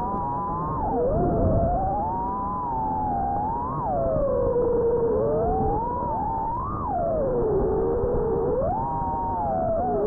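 Brushless motors of an FPV racing quadcopter whining, several close tones rising and falling together as the throttle is worked, with a low rumble beneath; the audio is muffled and thin.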